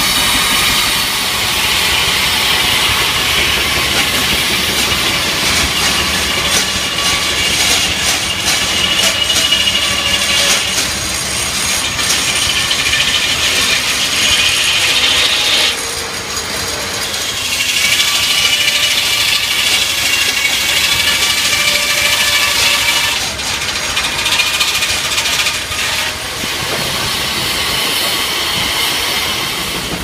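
Sawmill's circular saw, belt-driven by a Case steam traction engine, cutting wood with a steady high whine that drops away briefly a few times between cuts, over the running of the machinery.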